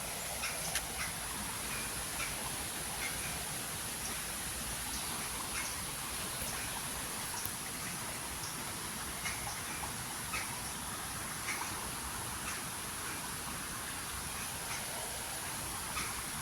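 Riverside ambience: an even rush of flowing river water with scattered short, faint chirps and a steady high-pitched hiss.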